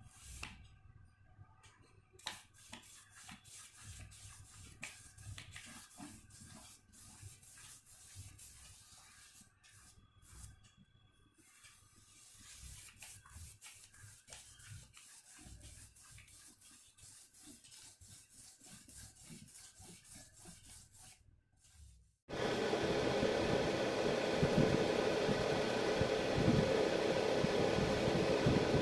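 Faint scratchy rubbing of a paintbrush stroking paint onto paper, with small clicks. About three quarters of the way through, a much louder steady rushing noise cuts in abruptly and stays.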